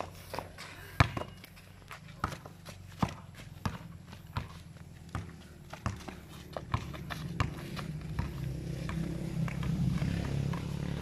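A basketball being dribbled on a concrete court, bouncing in an even rhythm of about three bounces every two seconds. Under it a low hum grows louder over the last few seconds.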